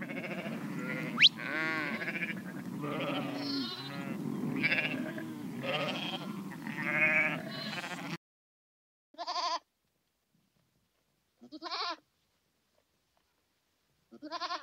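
Bleating animals: for about eight seconds a chorus of many overlapping bleats, with one sharp rising squeak about a second in. It cuts off abruptly and is followed by three single short bleats a couple of seconds apart.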